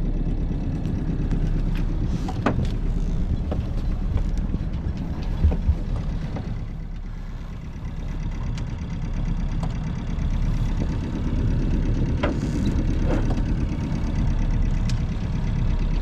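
Yamaha Y-31 cruiser's engine idling: a steady low rumble, with a few faint clicks over it.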